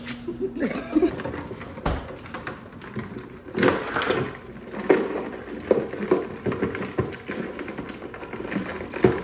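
Irregular clicking and clattering of crabs being handled in a plastic tub.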